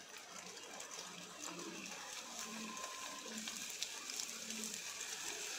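Hot oil sizzling and crackling around a small piece of semolina puri dough dropped in to test the oil's heat. The sizzle grows slowly louder.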